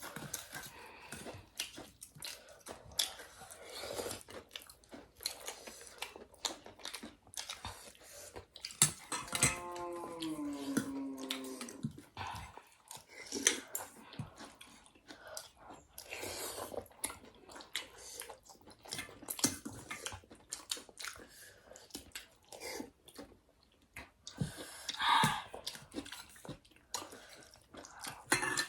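Close mouth sounds of people eating thukpa noodle soup: chewing and biting, with occasional clinks of spoons and dishes. A brief hummed voice sound falls in pitch about nine seconds in.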